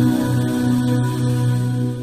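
Slow background music of long, held notes.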